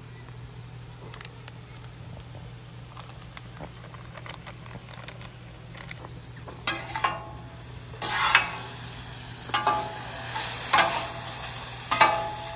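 Ground beef sizzling on a hot Weber 22-inch flat-top griddle. From about seven seconds in, a metal spatula scrapes and chops across the steel plate in several sharp, ringing strokes, and the sizzling grows louder.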